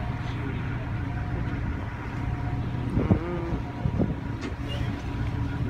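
Ferry boat's engines running with a steady low rumble and a faint steady hum. A brief louder sound comes about three seconds in.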